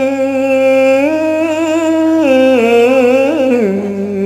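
Khmer Buddhist smot: a monk chanting solo in a long melismatic sung line, holding each note with small wavering turns and stepping down in pitch near the end.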